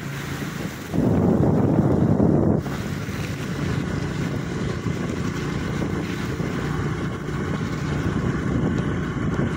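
Wind rushing over the microphone of a motorbike riding along a rain-soaked road, with the running vehicle underneath. The rush swells louder for about a second and a half soon after the start, then settles to a steady level.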